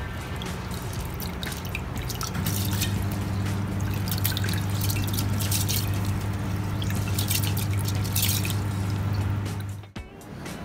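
Rice being washed by hand in a bowl of water: fingers swishing and rubbing the grains, with splashing and dripping in bursts. A steady low hum runs underneath from about two seconds in, and the sound cuts off suddenly near the end.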